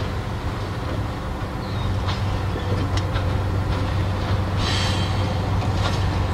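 Diesel locomotive approaching slowly with a freight train: a steady low engine drone, with a few sharp clicks and a brief high-pitched rasp about four and a half seconds in.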